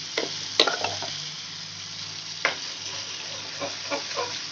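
Hot oil sizzling in a metal kadhai as a ground masala paste is stirred into the tempering, with a steel spoon clinking and scraping against the pan about seven times, the sharpest about half a second in.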